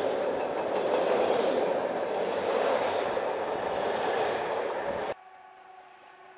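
Intermodal container freight train passing close by, its wagons rumbling and clattering steadily over the rails. The noise cuts off abruptly about five seconds in, leaving a faint steady hum from a distant diesel locomotive approaching.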